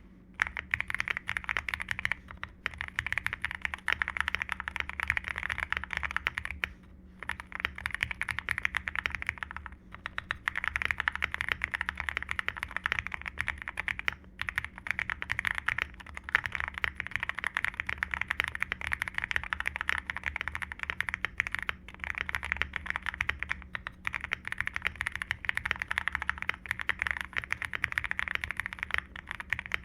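Fast typing on a custom Akko MOD005 mechanical keyboard with lubed Akko CS Jelly Black linear switches on an aluminium plate and PBT double-shot keycaps: a continuous run of keystrokes broken by a few brief pauses.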